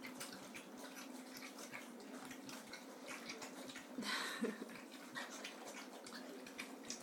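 Bull terrier puppies eating together: many rapid, overlapping wet lapping, chewing and smacking sounds, with a louder burst of scuffling about four seconds in.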